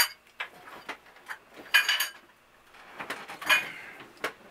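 Ceramic bowls knocking and clinking together as they are handled and set aside: a scattering of short clinks and knocks, the loudest about two seconds in.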